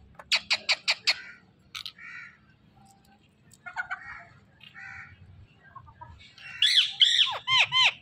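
Rose-ringed parakeet calling: a quick run of short, sharp squawks at the start, a few soft chattering notes in the middle, then loud rising-and-falling screeches near the end.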